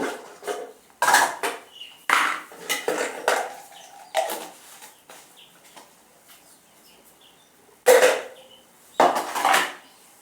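Dishes, pots and cutlery clattering and knocking together as they are handled in hand-washing. There is a string of irregular clatters, a lull of a few seconds, then two loud clatters near the end.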